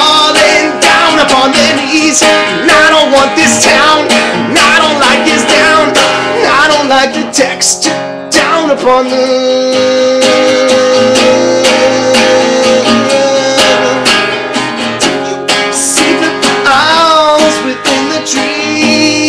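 Acoustic guitar played in an instrumental passage of a song: dense strummed strokes through the first half, then a long held note for a few seconds.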